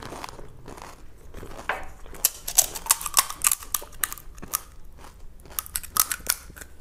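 Crisp crunching and crackling of pani puri, close to the microphone: a mouthful being chewed and dry puri shells cracking as fingers press holes in them, with a dense run of sharp crackles in the middle.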